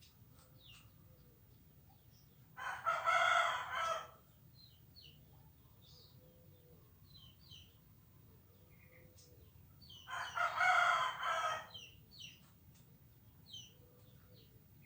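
A rooster crowing twice, each crow about a second and a half long and the second coming about seven seconds after the first. Short high bird chirps are scattered in between.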